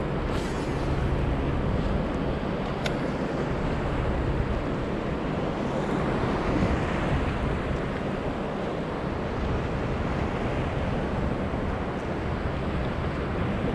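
Steady wash of ocean surf, with wind noise on the microphone.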